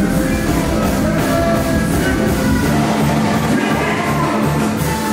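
Live carnival band music played loud through a stage PA, with a vocalist on microphone over a steady driving beat and heavy bass.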